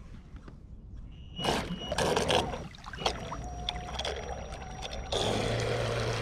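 Traxxas M41 RC catamaran speed boat's brushless motor on 4S setting off across the water. There are splashes about a second and a half in, then a faint motor whine. About five seconds in it turns to a steady, louder run with a low hum and water spraying off the hull.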